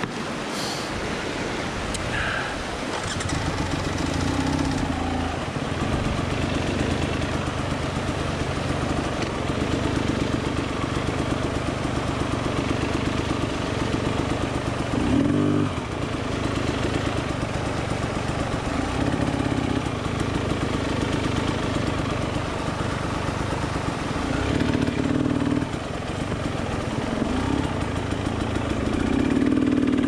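KTM 300 TPI two-stroke dirt-bike engine running at low speed from about two seconds in, with short blips of throttle near the middle and toward the end, as the bike is walked across a log bridge. A rushing creek runs underneath.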